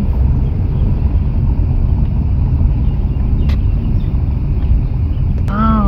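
Car driving along slowly: a steady low rumble of engine and road noise.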